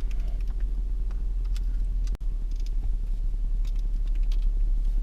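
Toyota 4Runner's engine idling, a steady low rumble heard inside the cabin, with a few light clicks.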